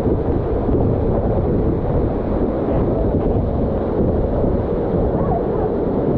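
Steady loud rush of water falling at St Nectan's waterfall, an even roar with no breaks.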